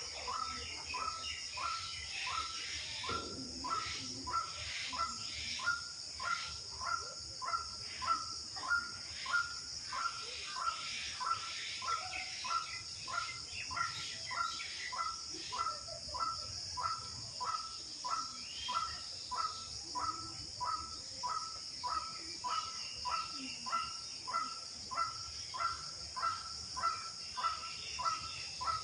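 An unidentified bird repeating one short, sharp call over and over, evenly, about three notes every two seconds, with a steady high-pitched insect drone behind it.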